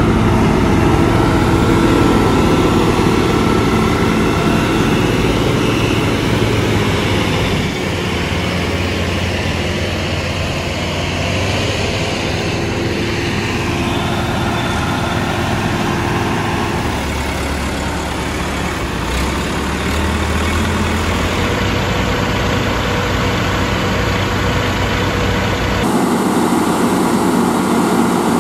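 Heavy diesel engines of a Tata truck and an ACE Hydra crane running steadily as the crane tows the truck. The sound changes abruptly a couple of seconds before the end.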